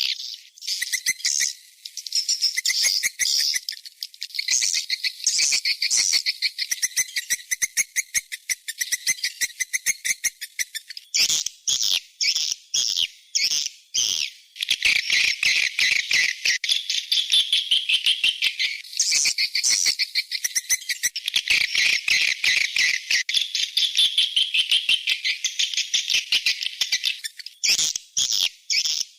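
Swiftlet lure call: a recorded chorus of swiftlets in a fast, continuous, high-pitched twittering chatter, played to draw swiftlets into a swiftlet house. The chatter breaks off briefly about eleven seconds in and turns into more separate chirps near the end.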